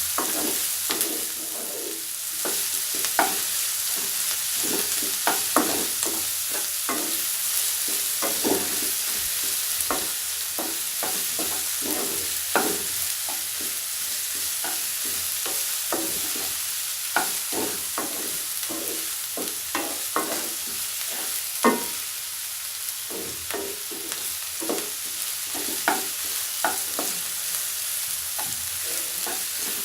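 Chopped vegetables stir-frying in hot oil in a kadhai over high flame: a steady sizzle, with stirring strokes scraping and knocking against the pan at irregular intervals.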